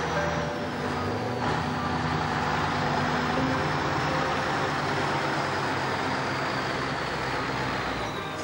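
Scania log truck loaded with timber driving past on a gravel road: its diesel engine runs steadily over tyre noise on the gravel, with a faint high whine that slowly falls in pitch.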